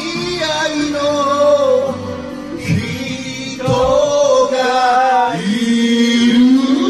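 A man singing karaoke into a handheld microphone over backing music, his voice carried through the sound system; the sung notes bend and are held for a second or so at a time.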